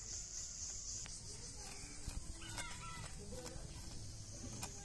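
A chicken clucking briefly about halfway through, with sharp scraping clicks of small fish being scaled against a curved boti blade. A high insect buzz runs for the first second, then stops.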